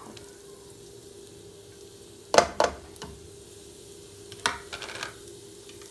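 Chopped onions sizzling in hot oil in a non-stick pot, with a few knocks against the pot, the loudest about two and a half seconds in.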